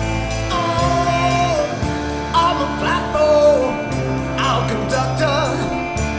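Rock song in an instrumental passage: a lead melody that bends and wavers in pitch over steady held bass notes.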